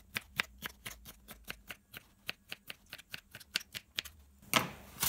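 Kitchen knife chopping a cucumber into small dice on a plastic cutting board: quick, even taps of the blade on the board, about four or five a second, with a louder brief noise near the end.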